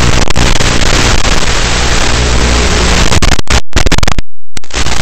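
RC model airplane's propeller motor and rushing air, picked up by its onboard FPV camera microphone: a loud, distorted noise over a steady low hum. The sound cuts out completely twice near the end.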